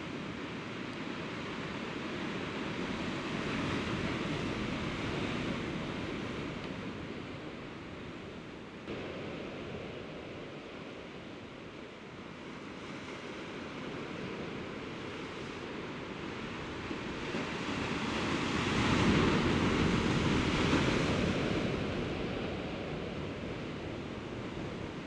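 Sea waves surging and washing against a rocky shore, a steady rush that swells twice, the bigger surge about three-quarters of the way through.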